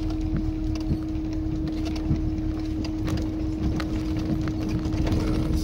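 Tofaş Kartal car driving slowly over a rough, stony dirt track, heard from inside the cabin: a steady engine hum over low road rumble, with many irregular knocks and rattles from the body and the stones under the tyres.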